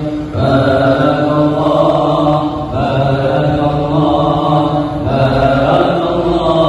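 Chant-like devotional singing in long, drawn-out held notes. It comes in phrases of two to three seconds with short breaks between them.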